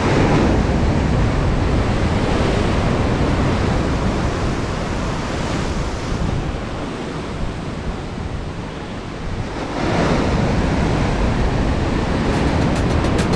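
Ocean surf breaking on the shore, with wind buffeting the microphone; the surf swells at the start and again about ten seconds in. A fast, faint high ticking begins near the end.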